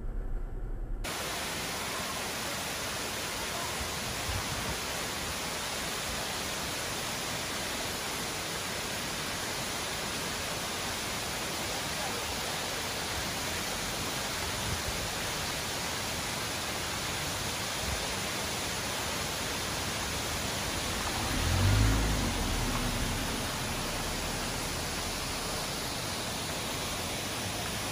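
Steady rushing water of a waterfall, an even hiss-like roar. A brief low rumble about 22 seconds in.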